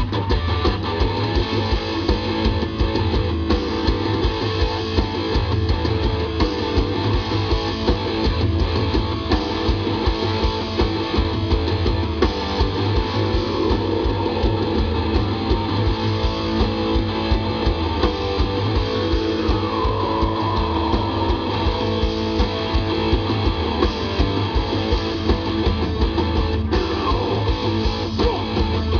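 Live rock band playing: electric guitars, bass and drums over a steady beat, heard through the stage PA from the crowd.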